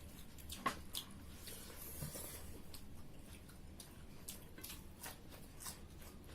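People eating: chewing with scattered small clicks and taps, one sharper click just under a second in.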